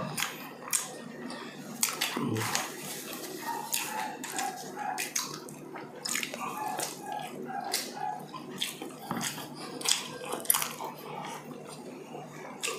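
Close-miked mukbang eating: two people chewing hotdog and sausage, with wet mouth sounds and lip smacks in many short, sharp clicks.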